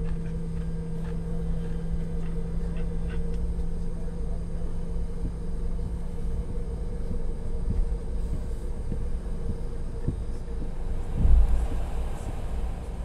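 Steady low rumble and constant hum inside the cabin of a Boeing 717 standing on the ground, with one brief low thump about eleven seconds in.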